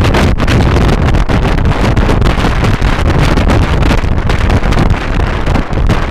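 Heavy wind buffeting on the microphone of a rider on a moving motor scooter, a loud, fluttering rush with a low rumble from the ride underneath.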